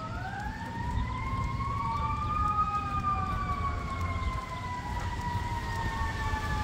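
Siren wailing, more than one tone overlapping: one pitch rises slowly over the first few seconds, then falls slowly for the rest, over a steady low rumble.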